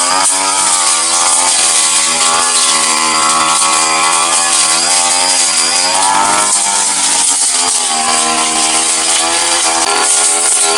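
Petrol brush cutter running at high revs while its metal blade cuts grass. The engine pitch wavers with the load, rising briefly about six seconds in and then dipping.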